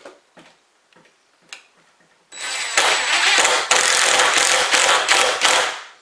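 DeWalt 20V cordless drill driving a screw into a door hinge, its motor running for about three and a half seconds before winding down near the end, after a couple of seconds of light clicks as the bit is set on the screw. The screw is biting into a stripped hole that has been filled with epoxy-coated toothpicks and dowels.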